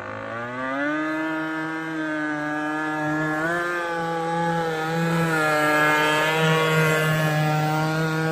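RC boat's two-stroke gas engine running. Its pitch climbs back up during the first second, then holds steady with a small rise about three and a half seconds in.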